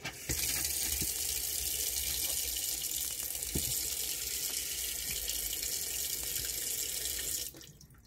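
Caravan kitchen mixer tap running a full stream of water into a stainless steel sink for about seven seconds, then shut off. This is a flow test with the tap's filter just cleaned.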